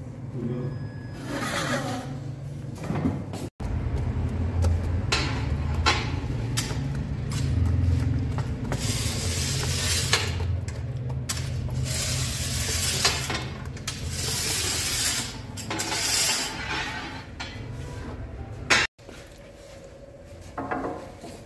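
Bakery work at a Sangak oven: scrapes and clinks of a long iron peel against the oven and its pebble bed, and dough being patted out on a peel, over a steady low rumble. The sound drops out sharply twice.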